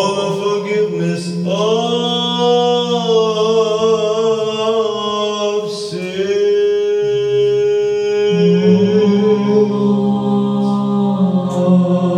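Unaccompanied Orthodox liturgical chant: voices singing long, slow notes, the melody moving over a steady lower held note.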